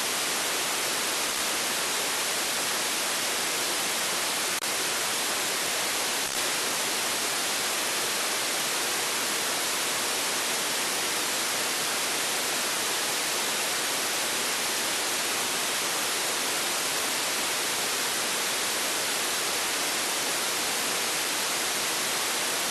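Steady hiss from an FM radio receiver (SDR# software radio tuned to 29.52 MHz on the 10-metre band) with no signal on the channel: the demodulator puts out open-squelch noise between transmissions on the repeater. Two faint ticks, about four and a half and six seconds in.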